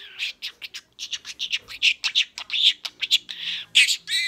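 Budgerigar chattering: a fast run of short, high chirps and scratchy warbles, with a wavering squawk near the end.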